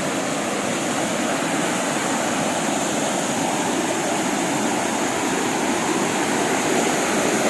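Small waterfall swollen with rainy-season water, rushing steadily over rock terraces.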